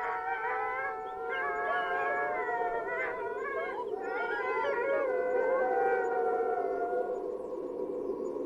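Several wolves howling together, their long wavering howls overlapping, over a steady low drone; the howls die away about seven seconds in, leaving the drone.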